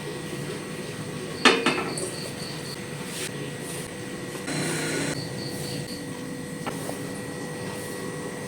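Pots and utensils being handled while cooking: a sharp metal clank about a second and a half in, a short rushing noise near the middle, and a small click later, over a faint steady hum.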